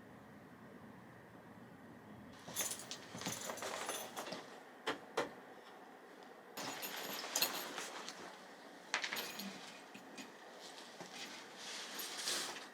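Three bursts of rustling and clinking handling noise, with a few sharp clicks between them.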